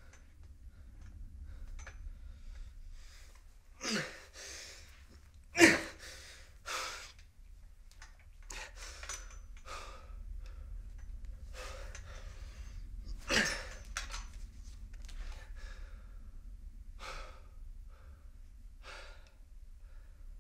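A person breathing hard in short, uneven breaths, with sharp gasps about four seconds in, just under six seconds in and again about thirteen seconds in, over a low steady hum.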